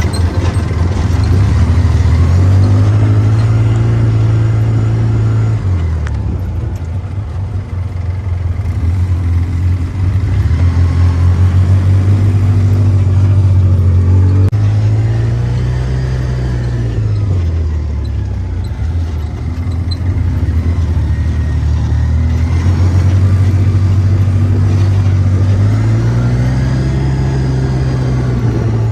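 A motor vehicle's engine running loud, its pitch rising and falling several times as it revs up and eases off.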